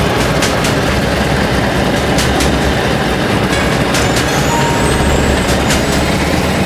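Aeroplane engine and propeller drone, steady and loud, with a few faint clicks over it.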